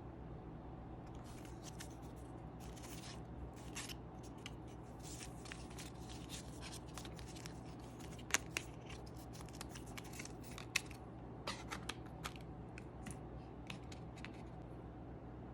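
Packaging of an iPhone box being opened and handled: a long run of short scratchy rustles, snips and tearing sounds with a few sharper clicks.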